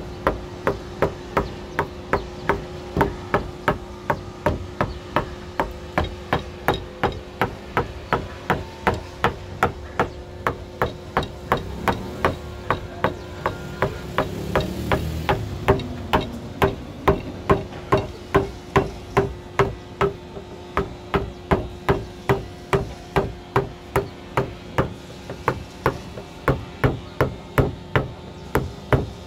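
Wood-carving chisel being struck with a hammer in a fast, steady rhythm of about three sharp blows a second, cutting a design into wood.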